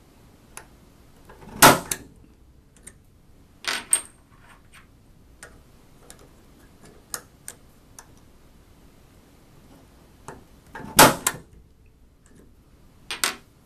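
Steel letter stamps being struck in a Stamp Perfect hand stamp machine to mark a metal washer: several sharp metal strikes, the loudest about one and a half and eleven seconds in, with light clicks of stamps being swapped and the piece turned between them.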